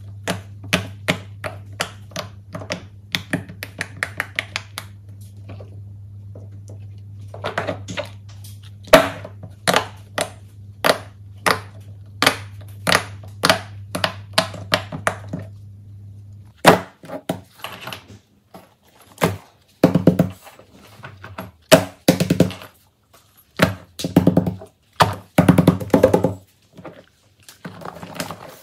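Silicone pop-it fidget toys being pressed, a fast run of sharp pops over a steady low hum. A little past halfway the hum stops and heavier thuds follow as silicone pop-its are set down and handled on the table.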